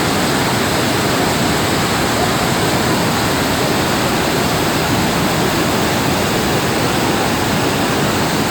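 Iguazu Falls: a huge volume of water plunging over the falls, a loud, steady, unbroken rush.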